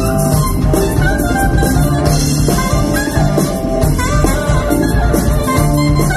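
Live jazz-funk band playing: drum kit and bass guitar under sustained saxophone and trumpet lines.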